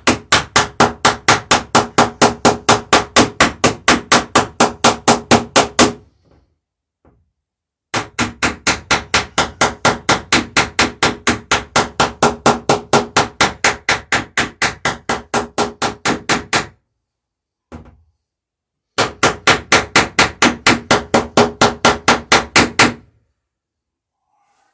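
Ball-peen hammer peening over rivets in a small wooden boat's lapped planking, in rapid even blows of about six a second. The blows come in three runs with short pauses between them.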